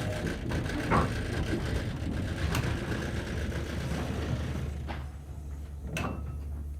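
Steam crane working as it passes, a steady mechanical rumble and hiss broken by sharp metallic clanks every second or so, dying away after about five seconds as it moves off, leaving a low hum.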